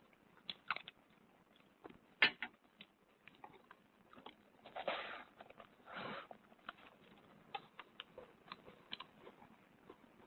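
A man eating greedily: a metal spoon clicks and scrapes against a pan, with chewing throughout. About halfway through come two longer, louder noisy bites into a chunk of bread.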